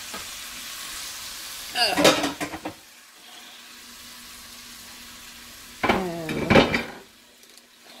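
Sliced vegetables and tofu sizzling in a frying pan, simmering in a little added water; the sizzle quietens about three seconds in. Short bursts of a voice come about two seconds in and again near six seconds.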